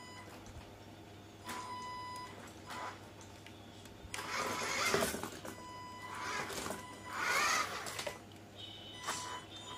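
WLtoys 104311 1/10 RC crawler driving: its electric motor and gearbox whine in two bursts, around the middle and again near the end, wavering up and down in pitch with the throttle. A steady high tone comes and goes in the background.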